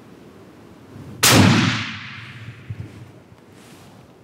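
A single shot from a scoped hunting rifle about a second in, followed by a long fading echo.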